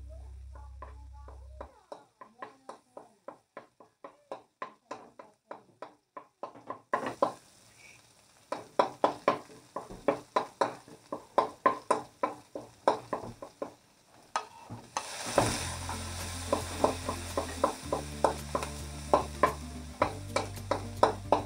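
Food frying and sizzling in a pan while being stirred. The sizzle starts about a third of the way in and gets louder about two-thirds of the way through.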